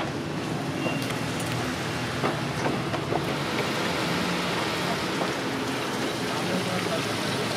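Liquid poured from a plastic jerry can splashing onto stacked lead battery plates in a plastic battery case, a steady pouring hiss that starts about three seconds in and keeps going. A steady low hum runs underneath.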